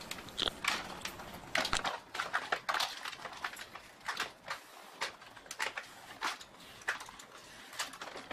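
Plastic polarizer film crackling and crinkling irregularly as it is peeled by hand off a laptop LCD panel's glass.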